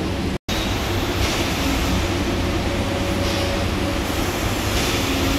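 Strong wind blowing across the microphone, a steady rumbling rush with a faint hum underneath; the sound drops out completely for an instant about half a second in.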